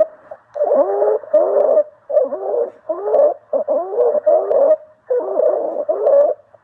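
Recorded lung sounds on auscultation: quick, repeated breath phases, each carrying several gliding musical tones, the kind of continuous adventitious sound heard as wheezing.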